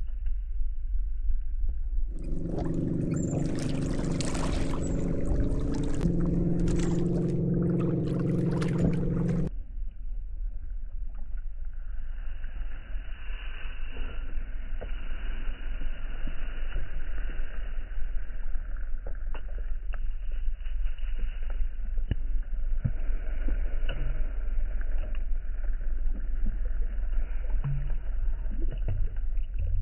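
Fishing kayak under way on a lake: a steady low rumble of the drive and water against the hull. A louder stretch of a few seconds, starting about two seconds in, carries a humming tone.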